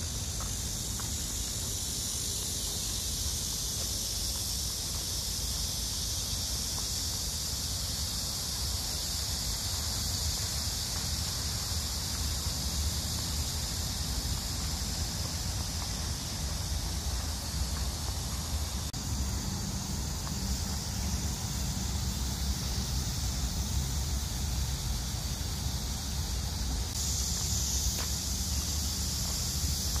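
Steady high-pitched chorus of insects in summer parkland, changing in tone twice in the second half, over a steady low rumble.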